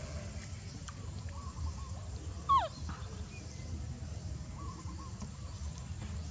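Baby monkey giving a single short, high call that glides down in pitch, about two and a half seconds in, over a steady low rumble.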